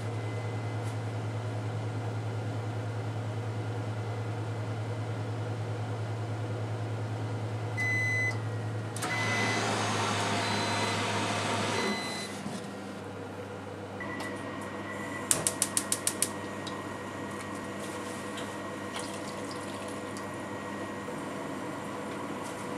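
AX-HC2 oven running with a steady low hum as its timer runs out; it beeps about eight seconds in, then a loud rush of noise follows for about three seconds, with more beeps, until the hum stops. Near the end come a couple more short beeps and a quick run of about six sharp clicks.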